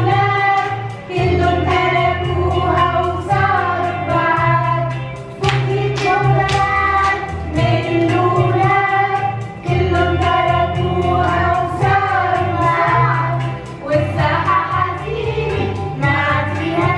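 A group of young children singing an action song together with women's voices, over a recorded backing track with a steady bass line.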